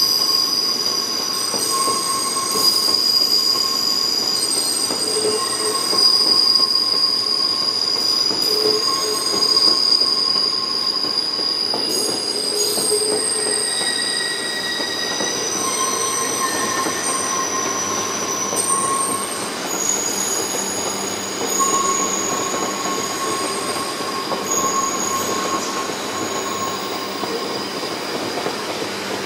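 Coupled E2 and E3 series Shinkansen sets rolling past at depot speed, their wheels squealing on the rails in several high, steady pitches that come and go and overlap, over a steady rumble of wheels on track.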